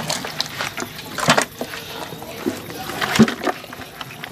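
Hands squishing and turning raw chicken pieces in wet blended seasoning in a plastic bucket: irregular squelches and slaps of meat and marinade, the loudest about a second in and again about three seconds in.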